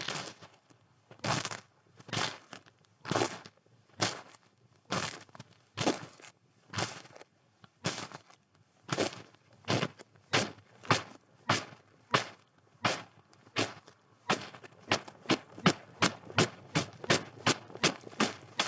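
Footsteps crunching in snow at an even pace, about one step a second. About three quarters of the way through the steps quicken to two or three a second and grow louder.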